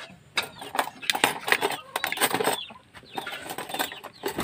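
Chickens clucking, mixed with many short, sharp clicks and knocks.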